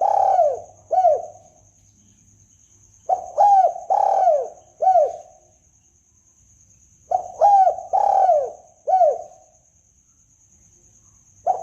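Spotted dove (tekukur) cooing: a phrase of about four low, bending coos, repeated about every four seconds, played as a lure call. A faint steady high whine and a low hum sit under it.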